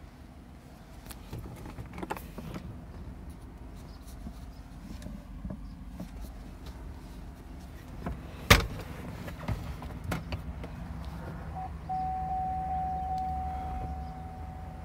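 Low steady rumble of a vehicle heard from inside the cab, with light clicks of handling, one sharp knock a little past halfway, and a steady whine that starts about three-quarters of the way through as the rumble grows louder.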